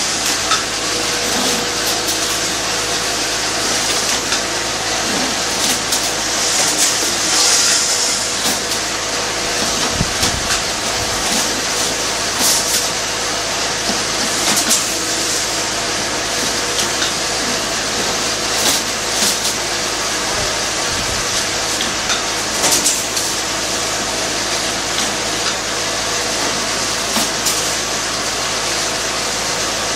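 Steel wire mesh welding machine running: a steady, loud mechanical hum and hiss, with a sharp clack every few seconds.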